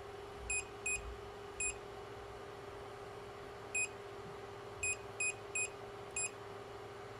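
Anycubic Kobra Plus 3D printer's touchscreen giving a short high beep at each key press on its number pad: eight beeps at uneven intervals, over a steady low hum.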